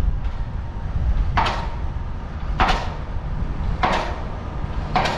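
Wind rushing over the microphone of a moving bicycle, a steady low rumble. Four short swishes come at even spacing, about one every 1.2 seconds.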